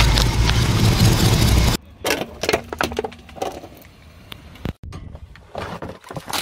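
A truck tyre rolls over a plastic toy motorcycle, crunching and cracking the plastic over a low engine rumble. This cuts off abruptly just under two seconds in. Quieter scattered clicks and cracks of objects being pressed follow.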